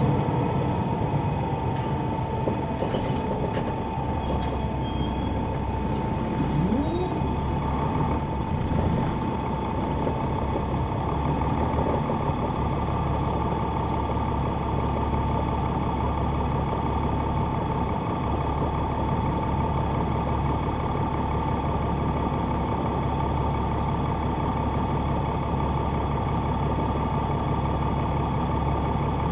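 Caterpillar C9 ACERT diesel engine of a Neoplan AN459 articulated bus running steadily, heard from the rear seats inside the bus. A steady high-pitched whine sits over the low engine drone, and a few faint high squeaks come in the first several seconds.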